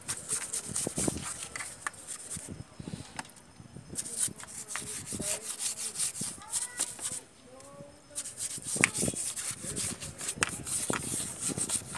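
A hand brush scrubbing grime off the wet, oily timing-gear end of a Toyota 2C diesel engine: quick, rough strokes in irregular runs, easing off twice for a moment.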